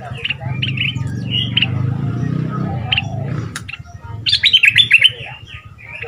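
Stripe-throated bulbul singing: short chirped notes throughout, then a loud, quick run of notes about four seconds in. A low steady hum sits underneath during the first half.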